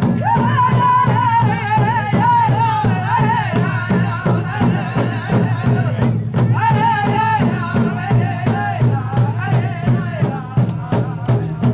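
Ojibwe drum group: a big hand drum beaten steadily, about three beats a second, under high, wavering singing. The singing breaks off briefly about halfway through and then comes back in while the drum keeps going.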